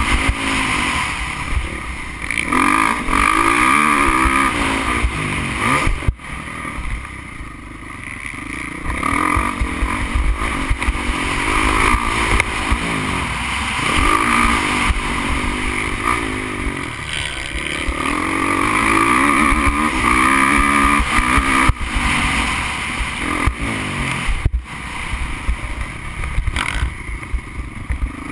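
Motocross bike engine, heard from onboard, revving up and dropping back again and again as the rider accelerates and shifts through the gears, over a steady low rumble of wind on the microphone.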